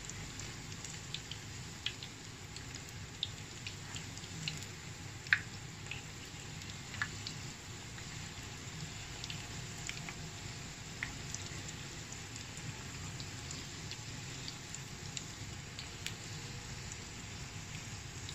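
Spring rolls deep-frying in oil: a steady sizzle with scattered crackles and pops, the sharpest about five seconds in.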